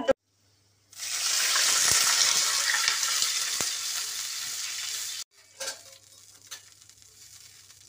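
Hot oil tempering (tadka) of mustard seeds and green chillies in a kadhai, sizzling loudly as an addition hits the hot oil. The sizzle starts suddenly about a second in, eases off, then cuts off short. A much fainter sizzle with a couple of clicks follows.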